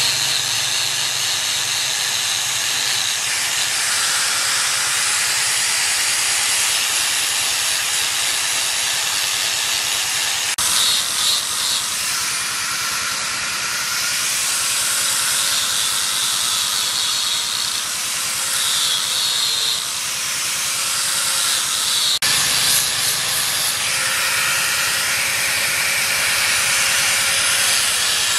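Electric angle grinder with a sanding disc running steadily as it sands carved wood, a continuous high hiss.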